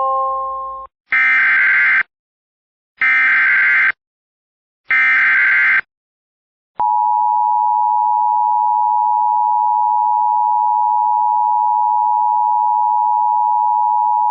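Emergency Alert System tones: the tail of a three-note chime, then three one-second bursts of the buzzing SAME header data. About seven seconds in comes the EAS two-tone attention signal, a steady dual tone (853 and 960 Hz) held for about eight seconds, announcing a severe thunderstorm warning.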